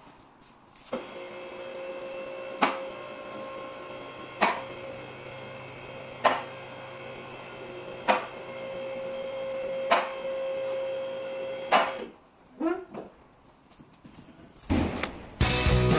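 Two-post car lift raising a car: the lift's electric pump motor runs with a steady whine while the safety locks clack about every two seconds, seven times, and then the motor stops about twelve seconds in.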